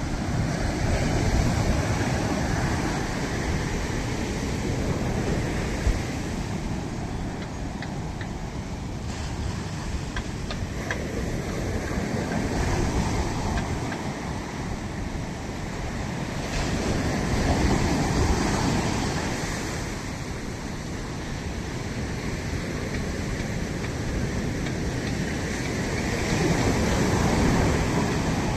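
Ocean surf washing onto a beach in a continuous roar that swells and eases every several seconds as waves break, with wind buffeting the microphone.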